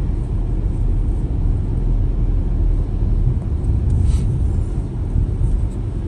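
Steady low rumble of a car driving along a town street, heard from inside the cabin: engine and tyre noise.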